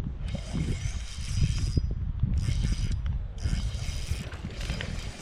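Fishing reel being cranked hard in about four spurts with short pauses, its gears whirring, as a hooked bass is reeled in.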